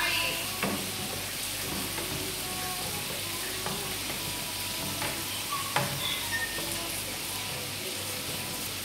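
Chopped tomatoes sizzling in an oiled frying pan while a wooden spatula stirs and scrapes them, with two sharper knocks of the spatula against the pan.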